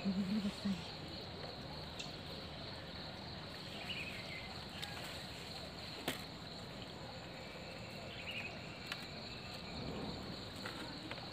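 Steady outdoor insect chorus, a continuous high note, with a few faint short chirps and scattered faint clicks. A voice speaks briefly at the very start.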